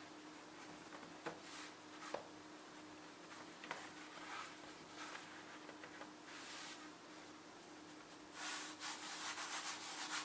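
Hands pressing, patting and rubbing Danish pastry dough against a floured countertop: soft brushing swishes with a few light taps, the busiest rubbing near the end. A faint steady hum sits underneath.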